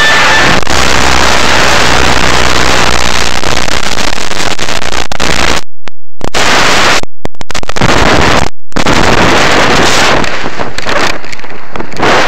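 Loud wind rushing over a helmet-mounted camera's microphone during a parachute exit from a small aircraft, with the aircraft engine's low drone in the first few seconds. The sound cuts out completely for short moments three times around the middle, and the wind rush eases near the end as the canopy is open overhead.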